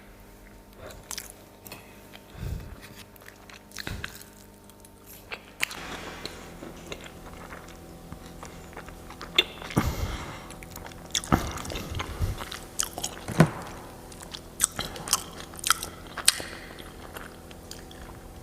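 A person eating close to the microphone: crunchy bites and chewing, with sharp crackling cracks scattered through, coming thicker in the second half.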